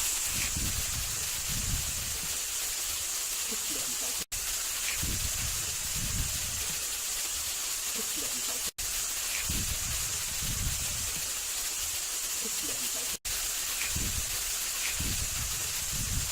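Steady hiss of running water, with low buffeting of wind on the microphone. The sound cuts out for an instant three times, evenly spaced.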